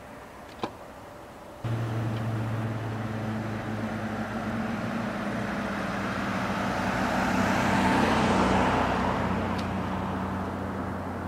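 A road vehicle passing: its noise swells and then fades, loudest a little past the middle. Under it is a steady low hum that cuts in suddenly about two seconds in, after a single faint click.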